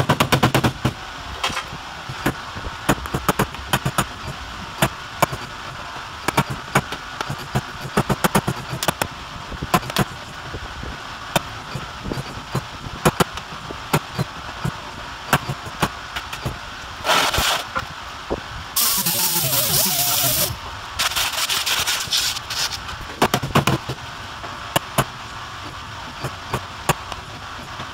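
Body hammer tapping out dents in a Kia Soul's steel side panel, many irregular sharp metallic taps. In the second half a pneumatic air hammer works the metal in several rapid bursts, the longest lasting about two seconds.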